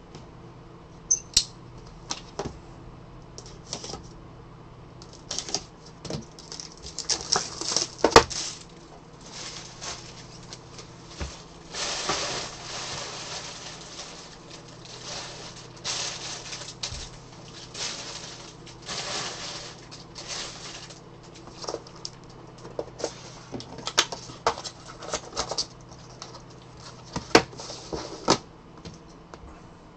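Plastic wrapping crinkling and tearing off a trading card box, with scattered clicks and knocks as the cardboard box and a plastic-wrapped stack of cards are handled.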